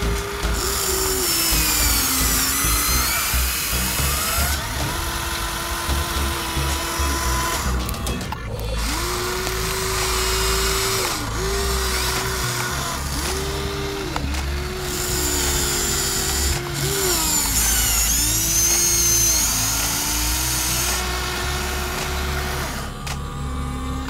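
Electric motors of a Huina remote-control toy excavator whining in short runs as its arm, bucket and tracks move. Each whine starts and stops every one to three seconds, holding a steady pitch and then dipping before it cuts off.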